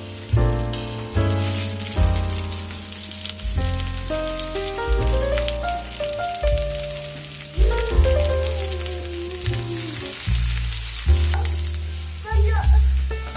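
Food sizzling as it fries in oil in a pan, a steady crackling hiss, under background music with a bass line and a melody.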